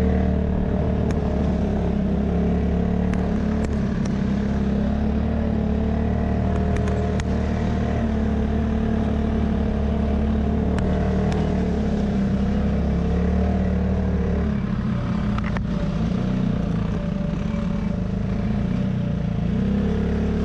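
An off-road 4x4's engine running steadily at low speed on a rough trail, with a few brief clicks and rattles. The low engine note shifts slightly about two-thirds of the way through.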